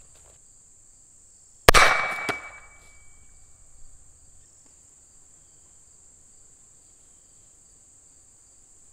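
A single shot from a 9mm pistol launching a golf ball from a cheap muzzle-mounted launcher. It is a loud, sharp crack about two seconds in that dies away over about a second, with a smaller knock about half a second after it and a brief ringing tone. Insects keep up a steady high buzz throughout.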